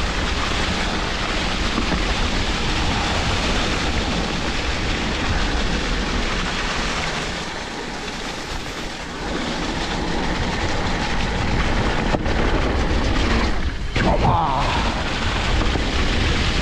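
Electric mountain bike riding over a wet, leaf-covered forest trail: steady rumble and rattle of the tyres and frame over rough ground, with wind on the microphone. The noise briefly drops out twice near the end.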